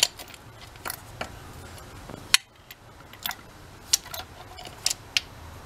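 Irregular sharp metallic clicks and clinks of a socket wrench and spark plugs being handled while the plugs are pulled from the engine one by one. One click, about two and a third seconds in, is louder than the rest.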